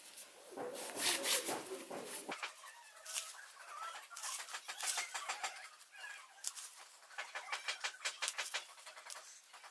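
Fabric rustling and crinkling as the elastic waistband of nylon shorts is gathered and pushed along a safety pin threaded through its casing. It is loudest about a second in, then goes on in quick runs of small crinkles.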